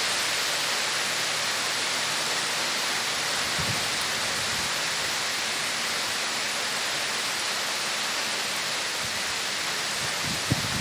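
Very heavy rain pouring down in a steady, even hiss, with a few low thumps and one sharp knock near the end.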